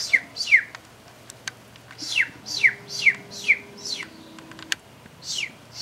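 High, bird-like peeping calls, each a quick whistle sliding down in pitch: a pair at the start, a run of five about two seconds in, and one more near the end.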